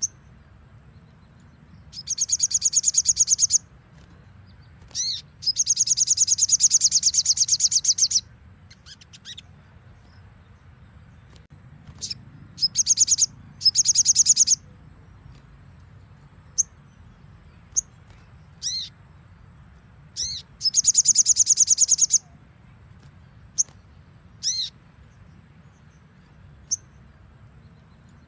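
Little spiderhunter (sogon) singing in rapid, high trills of one and a half to three seconds, several times. Between the trills come single sharp falling call notes and short chips. A faint low hum runs underneath.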